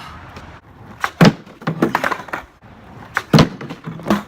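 Skateboard hitting the ground during trick attempts: a string of sharp clacks and knocks from the board and trucks, the loudest about a second in and again just after three seconds.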